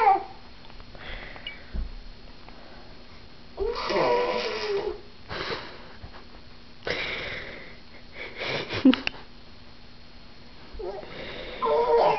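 A baby buzzing and blowing with her lips as if playing a trumpet, in several separate short bursts with pauses between, some with her voice sounding through the buzz.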